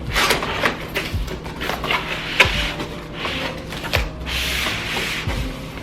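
Cardboard box being opened and handled: repeated scraping and rubbing of cardboard, with a couple of sharp knocks.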